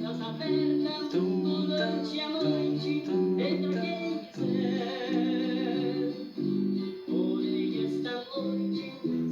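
Brazilian sertanejo raiz duo singing in two-voice harmony (first and second voice) over guitar accompaniment, in phrases of held, high notes.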